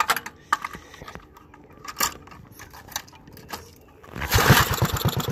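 Light clicks and knocks from the recoil starter, then about four seconds in a methanol-fuelled flathead Briggs & Stratton single-cylinder engine is pull-started and turns over with a rapid run of pulses without catching: it needs choke.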